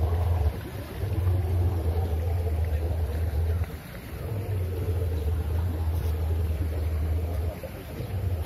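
Wind buffeting the microphone: a deep rumble in gusts of two to three seconds, dropping away briefly about half a second in, near four seconds, and near the end.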